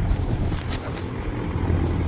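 HVAC unit motor running with a steady low hum after its capacitor has been replaced, with a couple of light ticks.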